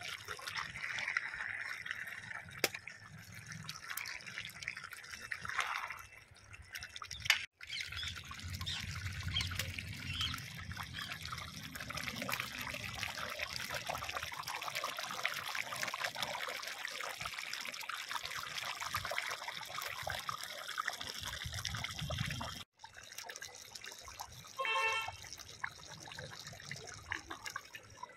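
A large pot of beef curry boiling, with steady wet bubbling and popping.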